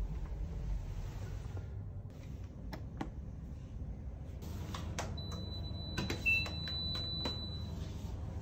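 Footsteps and small clicks around an elevator, with a short electronic beep about six seconds in, the loudest sound, over a thin steady high tone that lasts a couple of seconds.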